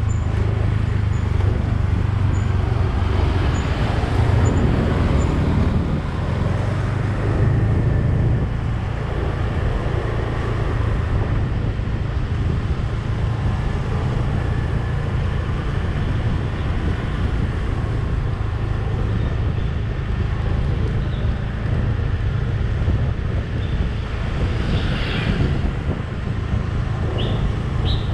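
Steady low rumble of engine and tyre noise from a vehicle driving along a street.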